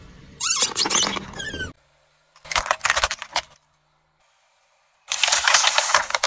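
Three short crushing sounds under a car tyre, separated by silent cuts. First squeaking and crunching from soft spiky plastic toys being squashed, then a quick run of sharp plastic cracks, then a steady loud hiss of soda spraying from burst plastic bottles.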